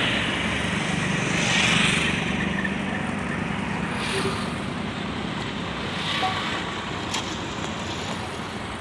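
A vehicle engine running, with road-traffic noise around it; its low hum is strongest for the first two seconds or so, then sinks into the steady background.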